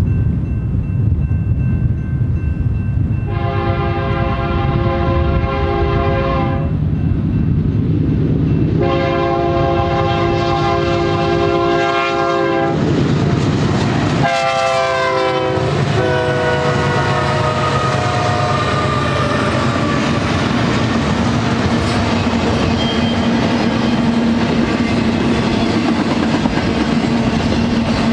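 A BNSF double-stack container train led by GE diesel locomotives passing close by. The locomotive's air horn sounds two long blasts and a shorter third, and the horn's pitch falls as the locomotives go past. The engines and the steady rumble and clatter of the wheels follow as the container cars roll by.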